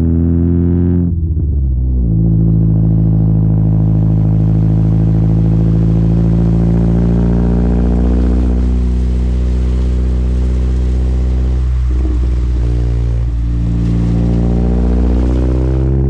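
Mazda MX-5's four-cylinder engine through an unbaffled aftermarket exhaust, heard close to the tailpipe while driving, a loud steady exhaust note at mostly even revs. The note breaks and drops away briefly about a second in, and twice more around twelve and thirteen seconds in.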